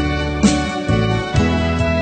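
Background instrumental music, with a new note struck about once a second.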